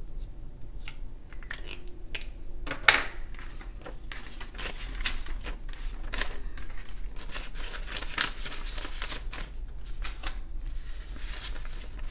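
Paper banknotes rustling and crinkling as they are handled, fanned and counted by hand, after a felt-tip marker scratches on a paper card at the start. One sharp click a little under three seconds in.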